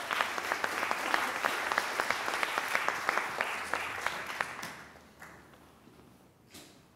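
Lecture audience applauding, a dense spread of many hands clapping that dies away about five seconds in.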